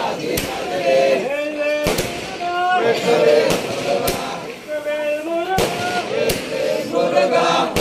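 A group of devotees chanting in unison, holding each line on long sung notes, while sharp loud cracks go off at irregular intervals about every second.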